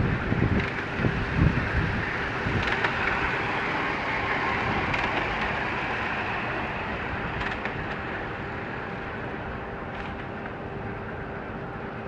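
A 3.5-inch-gauge live-steam Rob Roy model Caledonian tank engine running on raised track with a rider aboard, passing close and then drawing away. It is loudest in the first two seconds, with low rumbling pulses, and fades slowly as it moves off.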